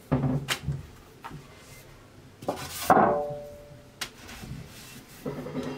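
Aluminium baking tray set down on the counter with a clatter and a short metallic ring about three seconds in, among lighter knocks from handling the tray and dough.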